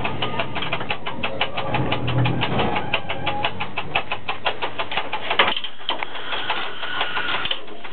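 Rapid, even mechanical clicking, about seven clicks a second, in the cab of a ChS4T electric locomotive. A single sharp knock comes about five and a half seconds in, after which the clicking fades into a steady mechanical noise.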